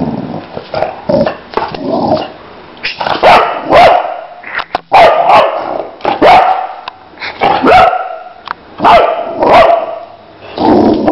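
Boxer dog barking loudly and repeatedly, short sharp barks, often two in quick succession, with brief pauses between the groups and softer, quieter barks in the first couple of seconds.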